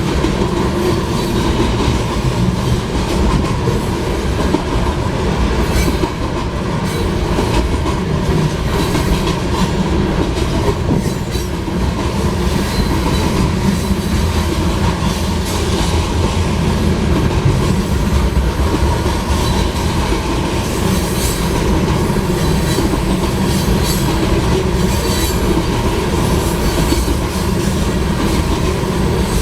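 Loaded grain hopper cars rolling past close by: a steady heavy rumble of steel wheels on rail with repeated clacks over the joints and a faint thin wheel squeal.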